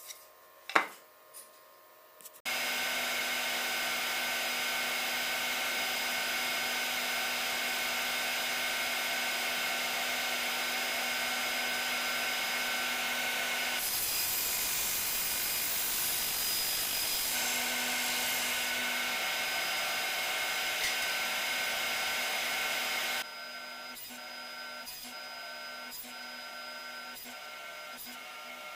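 A sharp knock, then a power saw starts up and runs steadily with a whine. In the middle, a plywood blade blank is cut through with a brief hiss. Near the end the noise drops abruptly to a quieter steady run with light, regular knocks.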